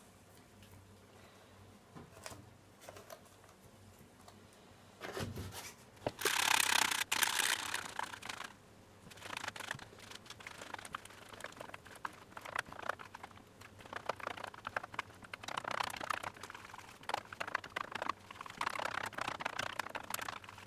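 Flat wire whisk beating flour batter in a bowl: rapid clicking and scraping in bursts from about nine seconds on. Before that, a loud rushing sound lasts about two seconds.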